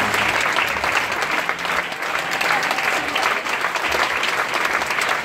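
Large audience applauding: many hands clapping in a dense, steady patter.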